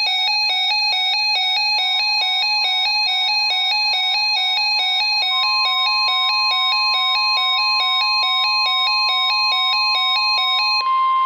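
Electronic alert beeps switching rapidly between two pitches, about four times a second. Under them, a steady single-pitch alert tone, the NOAA Weather Radio 1050 Hz warning alarm signalling a warning broadcast, comes in about two seconds in and grows stronger. Near the end the beeps stop and the steady tone sounds alone briefly before cutting off.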